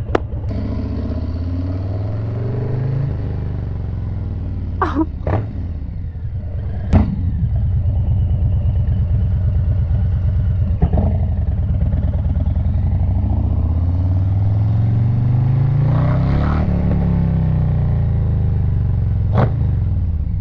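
Harley-Davidson Low Rider S's Milwaukee-Eight 117 V-twin running through an SP Concepts Big Bore 4.5 exhaust under way, accelerating through the gears. The pitch climbs and falls back several times as it revs up and shifts. A few short sharp clicks come in between.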